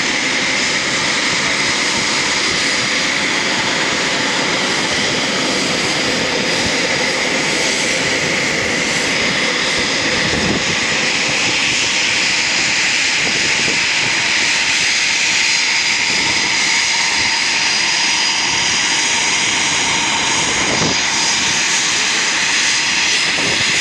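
Eurofighter Typhoon's twin jet engines running at taxi power: a steady, loud rush with a high whine over it.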